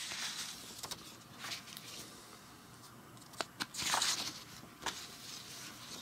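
Sheets of printer paper being handled and turned over: a few light taps and a soft rustle about four seconds in, with a smaller one near the end.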